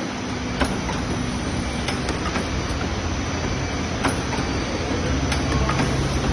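Continuous automatic dough divider and rounder running, a steady mechanical clatter with a low hum and sharp clicks every second or so.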